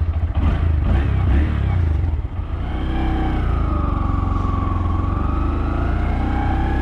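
Honda MSX125 Grom's small single-cylinder four-stroke engine running as the bike rides off. Its loudness dips briefly about two seconds in, then it runs steadily with a pitch that slowly sinks and rises again.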